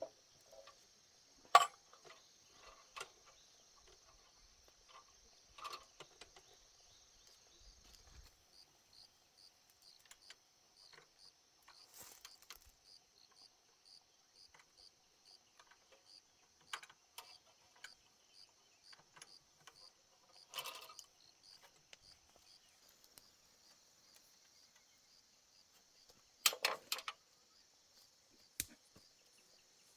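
Insects chirping steadily, with a regular pulsing chirp from about eight seconds in. Scattered clicks and knocks of something being handled sound over it, the loudest a short cluster near the end.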